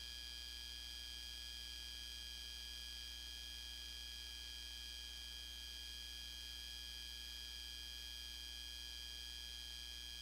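Steady, unchanging electrical hum and hiss with a few constant high-pitched tones: the background noise of a film transfer, with no parade sound in it.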